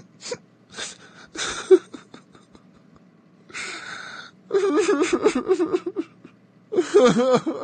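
Short non-word voice sounds: a few brief breathy bursts and a hiss, then two runs of wavering, pitched vocalising about halfway in and near the end.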